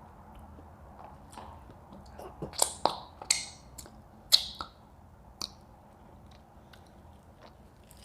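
Close-miked eating: chewing, with a cluster of sharp crunches and clicks about two to five seconds in.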